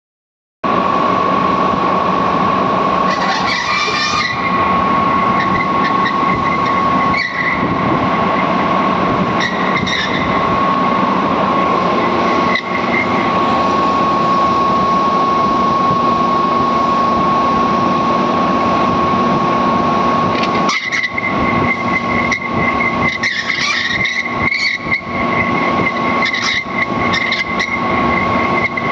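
CNC vertical machining centre drilling: loud, steady machine noise with a constant high whine, broken by short sharp bursts every few seconds. A second, higher whine joins about two-thirds of the way through.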